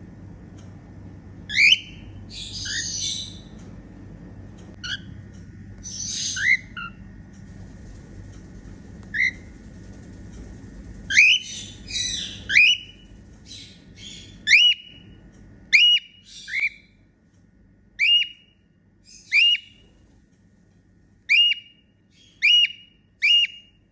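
Female cockatiel calling: short, sharply rising whistles, coming about once a second in the second half, with a few harsher, raspy chirps mixed in during the first half.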